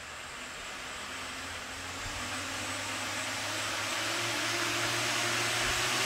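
FPV racing quadcopter's four 1806-size 2280 kV brushless motors spinning 3D-printed props, a steady whirring rush that grows steadily louder as the throttle is eased up while the drone is still on the floor.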